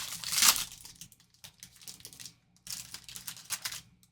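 Wrapper of a sealed trading card pack crinkled and torn open by hand, in short irregular bursts of rustling, the loudest about half a second in. The pack is hard to get open, so the crinkling comes in several separate tries.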